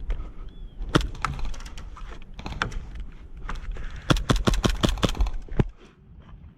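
Airsoft gas blowback pistol shots: sharp cracks, a few single shots early on, then a quick string of about ten shots about four seconds in.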